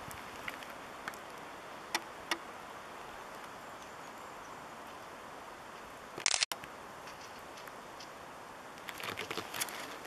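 Quiet forest ambience: a steady faint hiss with a few sharp ticks. About six seconds in there is a brief loud crackle that cuts off abruptly. Near the end come footsteps on a dirt path.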